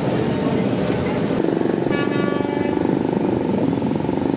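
Motorcycle engines running as bikes ride past. A vehicle horn gives one short toot about two seconds in.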